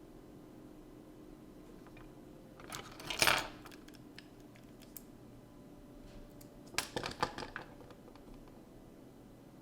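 Small metal tools clinking and clattering on a workbench in two brief bursts, the first about three seconds in and the second a few seconds later, like tools or a spool of solder wick being picked up and set down.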